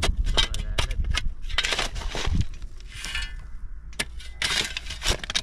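A string of sharp knocks and crunching scrapes, irregular and several a second, the loudest clack about four seconds in.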